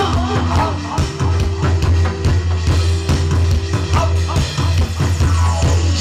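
Loud amplified music from the show's band: a drum-kit beat over a steady, held bass line, with a melody line above.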